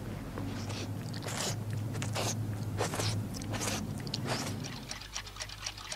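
Cartoon licking and slurping of an ice cream cone: a series of short wet strokes, over a low steady hum. Near the end, a faint quick ticking of clocks starts.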